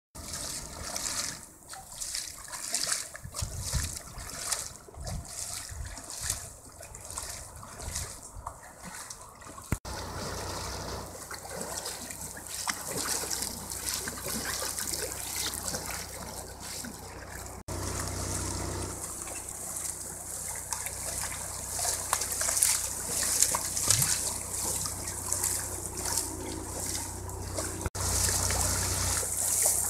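Water splashing and trickling from the paddle strokes of passing racing kayaks. The sound changes abruptly three times as the clips change.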